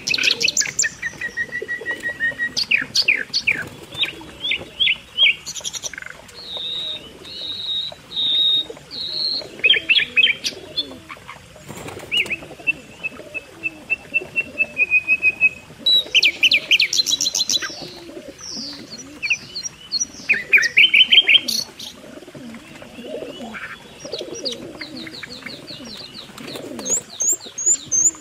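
A flock of domestic pigeons cooing in a loft, a continuous low murmur, with many short high chirps and twitters over it throughout.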